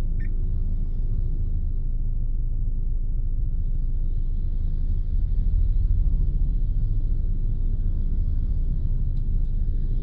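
Inside the cabin of a Mitsubishi Grandis MPV on the move: a steady low rumble of engine and road noise that swells briefly about halfway through. A short high tone sounds near the start.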